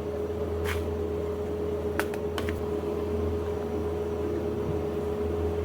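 Steady hum of café machinery, a low drone with a held mid tone, with a few short light clicks, one a little under a second in and two close together about two seconds in.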